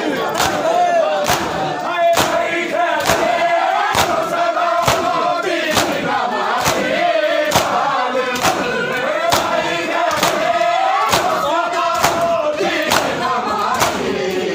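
Mourners doing matam, beating their bare chests with open palms in unison about once a second, while a group of voices chants a lament over the beat.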